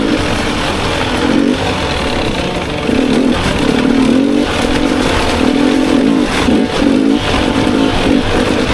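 250cc enduro dirt bike engine running under riding, revving up and easing off again and again.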